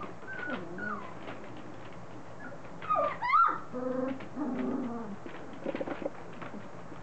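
Three-week-old standard poodle puppies whimpering and squealing as they play and mouth each other, with one loud rising squeal about three seconds in.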